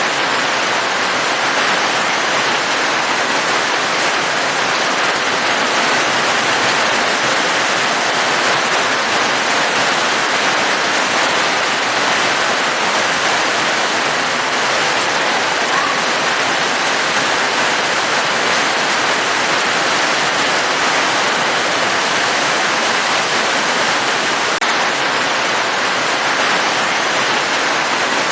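Heavy rain falling steadily: a dense, even hiss with no single drops standing out.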